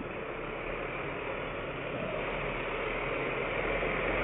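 Vehicle traffic noise recorded by a dashcam: a steady hiss of engine and road noise that grows slowly louder as a large truck turns in close to the camera car.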